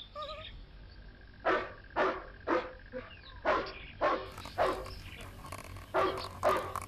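Dog barking: eight short, sharp barks in three bursts of three, three and two, beginning about a second and a half in.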